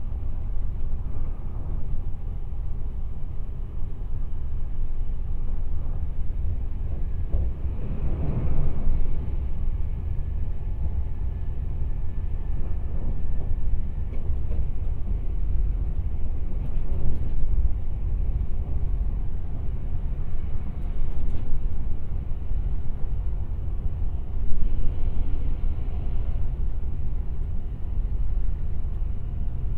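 Running noise of a Kintetsu 26000 series Sakura Liner electric limited express, heard inside the passenger cabin: a steady low rumble of wheels on rail, with a brief swell about eight seconds in, a few faint clicks, and a louder bump near the end.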